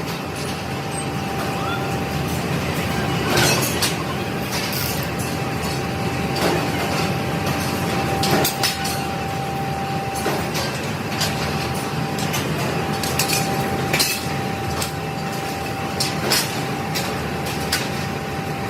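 Steel leaf spring factory machinery running, with a continuous hum and a thin steady whine. Irregular metallic clanks come every few seconds as steel parts are handled.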